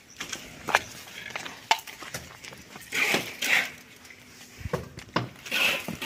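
Plastering work: a mason's trowel clinks and knocks, with short scraping sounds, a little over a second apart.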